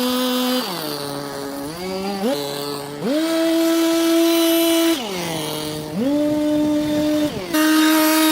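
Small gasoline engine of handheld yard power equipment being throttled up and down. It drops to idle under a second in, then revs up and holds high speed for about two seconds, falls back to idle, and revs up again twice, the last time held through the end.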